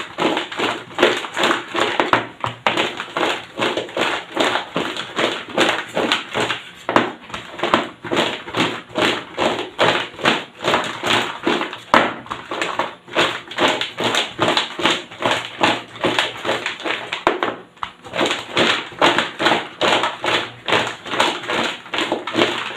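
Fries being tossed and mixed with paprika in a bowl: a fast, continuous run of light taps and rattles, several a second, with one brief lull about three-quarters of the way through.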